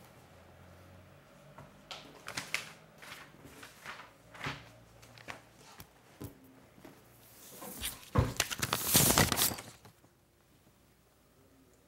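Paper being handled, with short scattered rustles. About eight seconds in comes a louder, longer rustle, like a sheet being crumpled.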